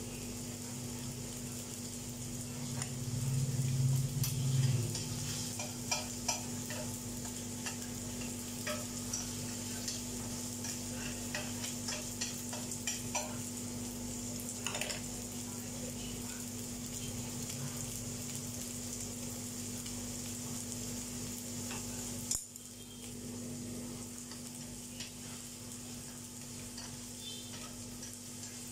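Rice pressed flat in a non-stick frying pan, sizzling steadily as it crisps into a scorched-rice crust, with scattered small crackles and pops. A steady low hum runs underneath, and a brief low rumble comes about four seconds in.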